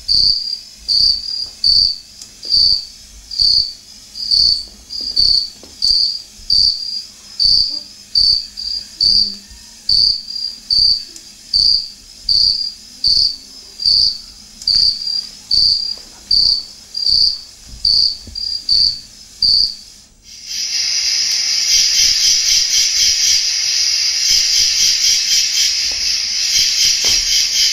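Crickets chirping, one high chirp about every second. About twenty seconds in, the chirping gives way abruptly to a continuous, denser insect trill.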